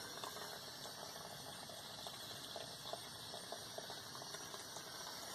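Faint trickling, bubbling water with small scattered crackles and clicks, from a water storage tank and its copper feed pipes.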